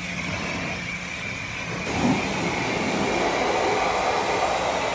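Car-wash pressure-washer wand spraying water onto a pickup truck's engine bay and front bumper: a steady hiss of spray that grows louder about two seconds in, with a steady low hum underneath.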